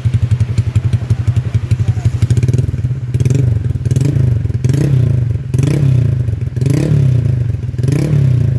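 Honda Vario 150 scooter's single-cylinder engine, bored up with a 59 mm piston, running through a CLD Racing C3 round aftermarket exhaust. It idles with an even, lumpy beat, then from about three seconds in is blipped in a series of short revs, each rising and falling, about one a second.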